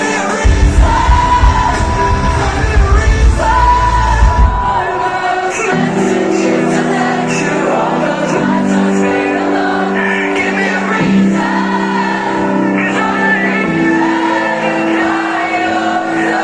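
Metalcore band playing live in a concert hall, with voices singing over the music. Heavy drums and bass drop out about four and a half seconds in, leaving sustained chords under the singing.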